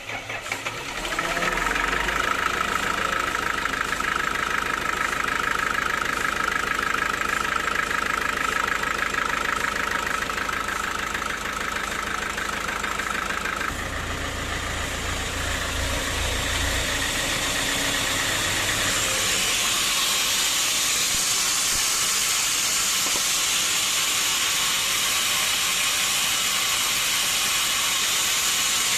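Sawmill saw running and cutting through a teak log: a loud, steady machine sound that comes up about a second in. A steady tone sits over it until about halfway, then the sound shifts and turns into a broader, hissier cutting noise for the rest of the cut.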